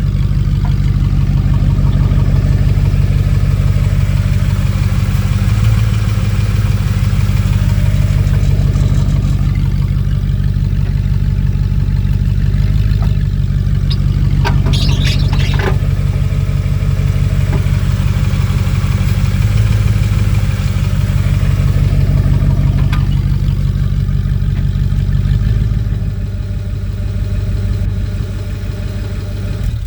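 2006 Ford F-150 running steadily with a deep, even hum, and a brief high-pitched squeal about halfway through. The squeaking is the noise the owner fears is a shaft coming out of the transmission.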